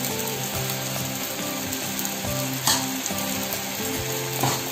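Ragi rava dosa sizzling steadily on a hot dosa tawa as it crisps, with a soft tune playing underneath and a couple of light taps.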